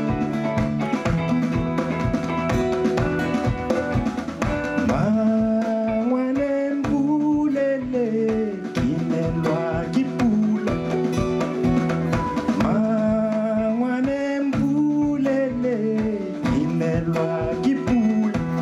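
Live band music: a drum beat and held bass notes under a melody line that rises and falls twice.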